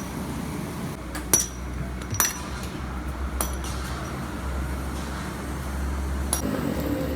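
Sharp metallic clinks and knocks, about five in all, some with a brief high ring, over a steady low machinery hum in a factory.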